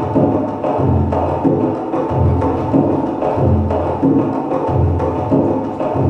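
Percussive music: a steady low beat about every two-thirds of a second, with sustained pitched tones above.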